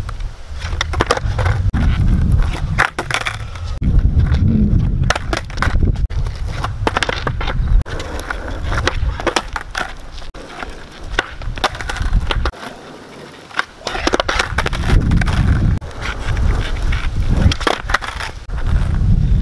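Skateboard wheels rumbling over rough asphalt, broken by repeated sharp clacks of the board's tail popping and the deck slapping down on the ground during kickflip attempts. The rolling drops away briefly about twelve and a half seconds in.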